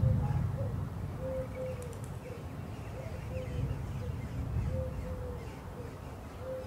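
A wooden spatula stirring lamb, tomato and onion masala in a simmering nonstick pan, the cooking noise loudest in the first second and then lower. Short cooing tones at one steady pitch repeat every second or so over it.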